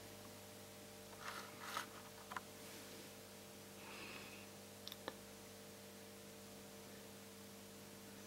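Near silence: a faint, steady electrical hum with a few soft clicks and rustles of handling.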